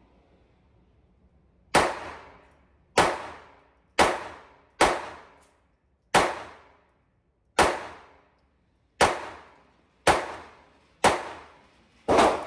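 Beretta Model 948 .22 LR semi-automatic pistol fired about ten times at a steady pace of roughly one shot a second. Each sharp crack rings out briefly off the walls of an indoor range booth.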